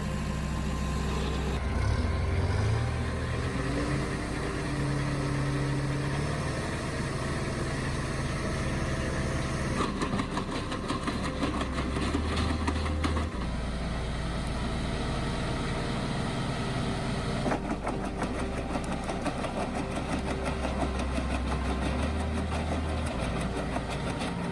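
Heavy machinery running, a steady engine drone with rapid rattling and clattering in stretches, about ten seconds in and again for the last several seconds.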